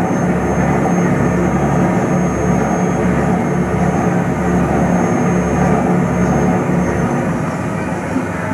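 A dredge barge's engine running steadily under way, a loud, even drone. A faint high whine over it fades out about seven seconds in.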